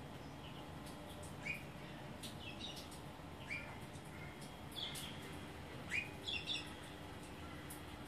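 Rainbow lorikeets giving short, sharp chirps that rise in pitch, about one a second, with a quick run of three louder chirps about six seconds in.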